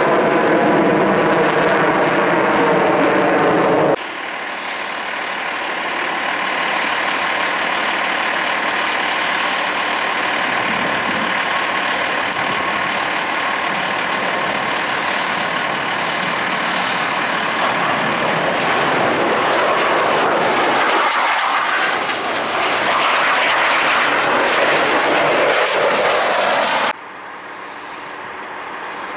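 Jet engines of Blue Angels F/A-18 Super Hornets in flight. First a formation's roar with a stack of wavering tones; then, after a cut about four seconds in, a single jet's loud, steady roar; then, after another cut near the end, a quieter roar from the formation climbing away.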